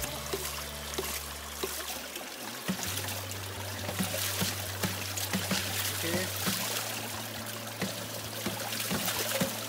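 Papa Pump hydraulic ram pumps running, their waste valves clacking shut about twice a second, with water splashing and trickling out of the valves into the pit. Background music with sustained bass notes plays over it.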